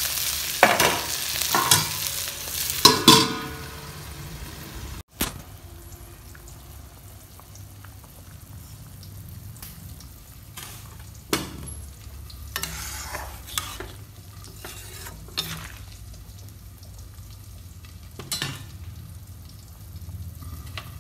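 Cauliflower and potato stir-frying in oil in a kadai: a sizzle with the metal spatula scraping the pan about once a second, cutting off suddenly about five seconds in. After that only a faint low hum with a few short knocks.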